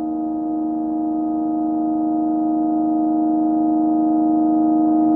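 Sustained drone of several steady held tones forming one unchanging chord, slowly growing louder.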